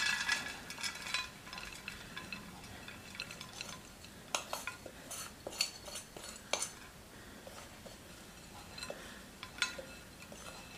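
Metal spoon scraping and tapping against glass as a sticky oat granola mixture is scraped from a glass mixing bowl into a glass baking dish. Soft scattered taps and scrapes, with a ringing glass clink at the start.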